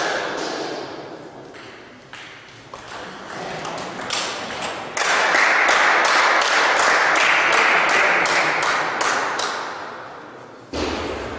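Table tennis ball clicking off bats and table, then about five seconds in a burst of applause and clapping in a large hall that dies away over several seconds. A dull thump near the end.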